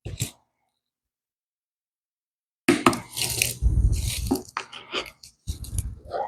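A short click, then dead silence for over two seconds, then a busy run of knocks, scrapes and clatter from items being handled on a workbench.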